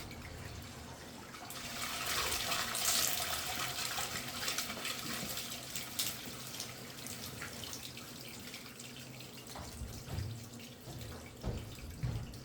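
Water rushing through an open sewer cleanout pipe as a sink upstream drains into the line. It swells about two seconds in, is loudest for a couple of seconds, then eases off.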